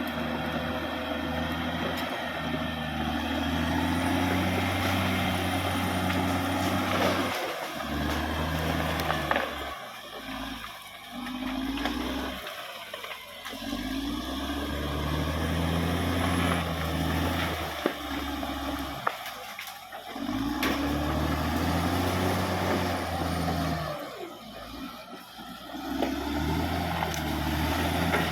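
Caterpillar D6R XL bulldozer's diesel engine working under changing load. Its low note rises and falls several times, dropping back briefly about a third of the way in, again past the middle, and again near the end.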